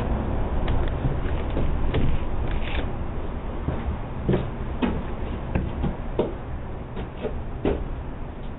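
Steady background noise with about ten irregular light knocks and clicks, heard through a doorbell camera's thin-sounding microphone.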